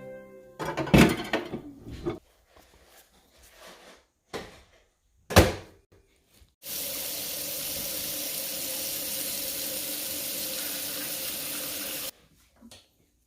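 A kitchen tap runs into the sink in a steady stream for about five seconds, then is shut off abruptly. Before it come a few clattering knocks and one sharp loud knock, like things being handled at the sink.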